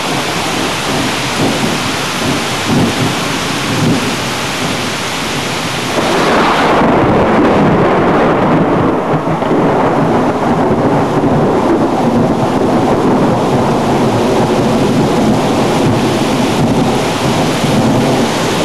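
Heavy thunderstorm: steady rain hiss, then a long, low roll of thunder that breaks in about six seconds in and rumbles on to the end, louder than the rain.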